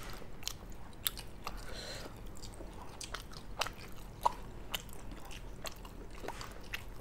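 Close-up chewing and mouth sounds of people eating fried rice and chicken by hand: irregular soft smacks, clicks and crunches, some of them the underdone, crunchy vegetables in the fried rice.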